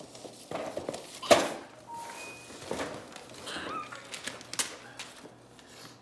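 Gift-wrap paper being torn and crumpled off a cardboard toy box: a run of crackling rips, the loudest about a second in.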